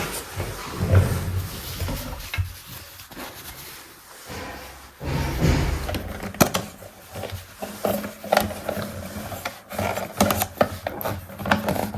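Small plastic toy parts being handled: irregular clicks, knocks and rubbing, with a brief quieter spell partway through.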